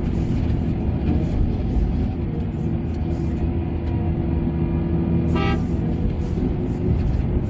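Heavy diesel machinery running steadily, with one short horn toot about five and a half seconds in.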